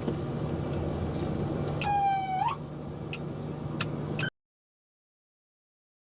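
Steady vehicle hum with a few sharp clicks and a short police siren whoop about two seconds in, a held tone that rises at its end. The sound cuts off abruptly after about four seconds.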